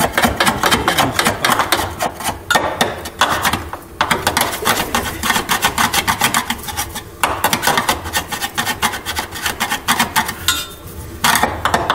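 A hand tool working metal on a car's underside: fast rasping, clicking strokes in several bursts a few seconds long, with short pauses between them.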